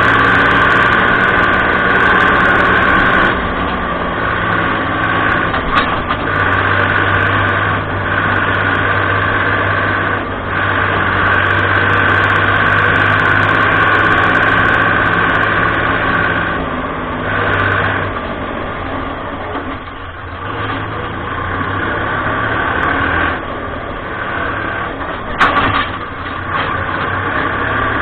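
Fiat 55-56 tractor's diesel engine running steadily as the tractor is driven, heard from inside the cab. The engine eases off for a few seconds about two-thirds of the way through, and a single sharp click comes near the end.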